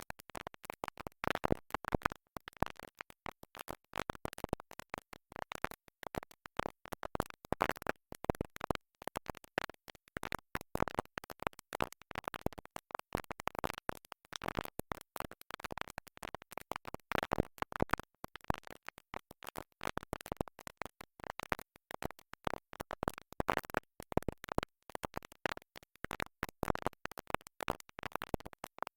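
A stuck vinyl record skipping in its groove, repeating a tiny fragment of music over and over in a fast, choppy stutter.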